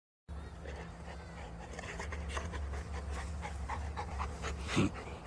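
Dog panting in quick, even breaths, about three a second, over a steady low rumble, with one short, louder sound near the end.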